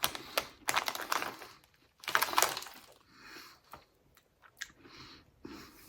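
Mouth-close crunching of thick ridged potato chips being chewed: two bursts of crisp crackling in the first few seconds, then a few faint clicks.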